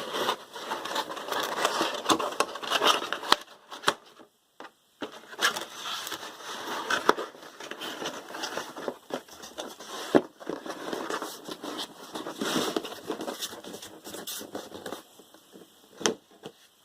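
Packaging being handled during an unboxing: irregular rustling and crinkling with scrapes and small clicks and knocks, broken by a short pause about four seconds in.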